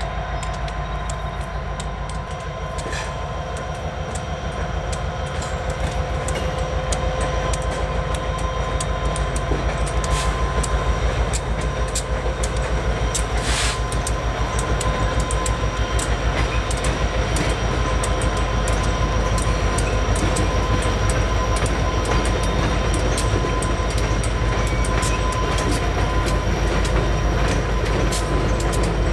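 Norfolk Southern diesel locomotives running past at speed hauling freight cars: a steady engine drone with a thin high whine and wheels clicking over the rail joints, getting a little louder as the locomotives come by.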